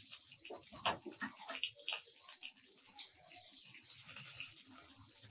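Chopped onions sizzling in hot mustard oil in a frying pan: a steady high hiss with scattered crackles and pops.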